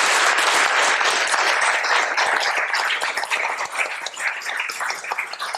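A small audience applauding, dense at first and thinning to scattered separate claps toward the end.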